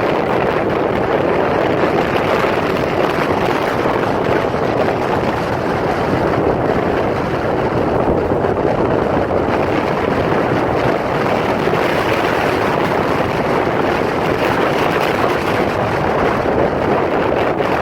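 Strong storm wind blowing, a steady loud rushing noise without distinct gusts or impacts.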